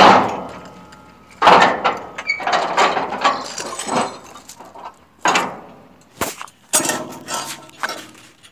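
A loud, steady noise fades out in the first second. It is followed by scattered sharp knocks and metallic clinks, five or six spread over several seconds, some with a brief ring.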